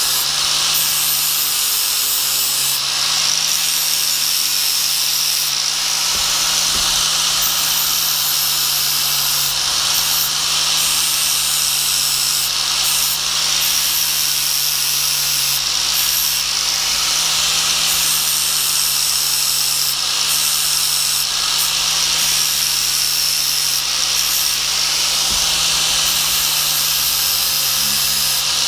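Angle grinder with a flap disc grinding the steel teeth of a hedge trimmer blade set to sharpen them. The grinder's motor holds a steady note under the continuous grinding noise of the disc on the steel.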